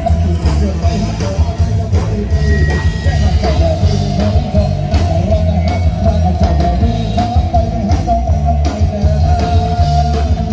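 Loud band music with a heavy bass, a steady drumbeat and a wavering lead melody on top.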